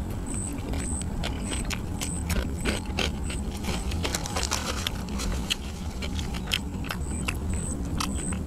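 Eating grilled catfish with the hands: close-up chewing with many sharp, crackly clicks as the skin and flesh are pulled apart and bitten. A faint high beep repeats about twice a second behind it, dropping out for a few seconds in the middle.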